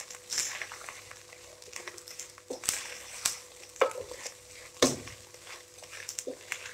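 A plastic spatula stirs and tosses shredded boiled chicken and dry spices in a non-stick pot, scraping against the pan, over a faint sizzle of frying. A few sharper scrapes or knocks of the spatula on the pot stand out.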